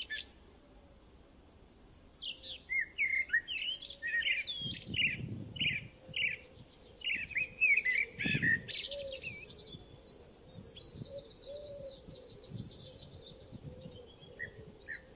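Birds chirping and calling in a busy chorus of short, quick notes that rise and fall. They thin out to a few scattered chirps near the end.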